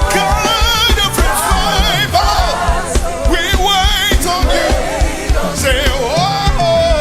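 Live gospel worship music: a singer's voice with heavy vibrato over a band with a steady drum beat.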